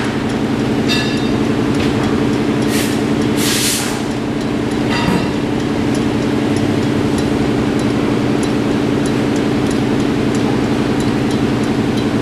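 Aluminium front rim of a 1985 Kawasaki 454 spinning on a spin-test stand: a steady whirring hum with faint, evenly spaced ticks. A few short bursts of hiss come in the first five seconds.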